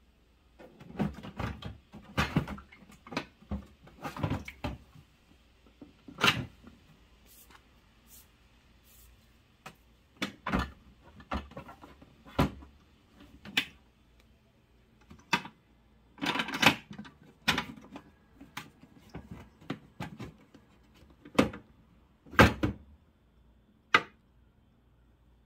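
Hard plastic clicking, knocking and scraping as the front panel of a Winix Bbosong 17L dehumidifier is opened, the water tank's handle is flipped up and the tank is slid out. The sounds come in uneven single knocks and short clattering runs.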